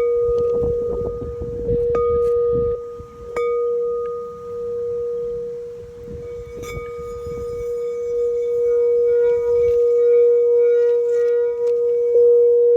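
Crystal quartz singing bowl tuned to A, sounding one long steady tone that swells and wavers in loudness. Several sharp taps in the first seven seconds set off brighter ringing overtones above it.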